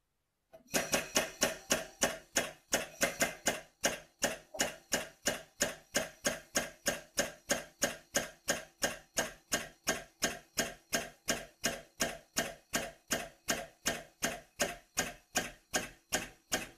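Tool pressing a piston pin into the piston and connecting rod of a Toyota 5E-FE engine, clicking evenly about three times a second as it is worked slowly.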